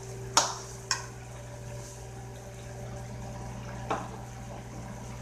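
A metal spoon clinking against a ceramic plate as a salad is tossed: two sharp clicks half a second apart early on, and a softer one about four seconds in, over a steady low hum.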